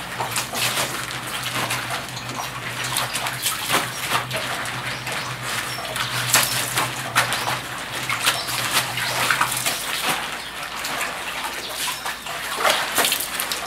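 Water splashing and sloshing in basins as salted napa cabbage halves are rinsed by hand, dunked and lifted out dripping. A steady low hum runs underneath and stops about ten seconds in.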